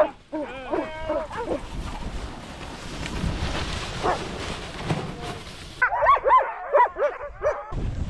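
Team of harnessed sled dogs yipping and barking: a short run of yelps just under a second in, then a steady hiss, then a dense volley of excited yelps that cuts off suddenly near the end.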